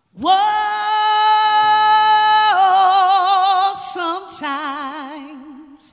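Solo singing voice sliding up into a long held high note, breaking into vibrato about two and a half seconds in, then dropping to a lower note with wide vibrato that fades out near the end.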